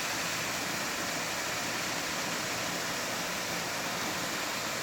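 Steady rushing of water pouring down an artificial waterfall.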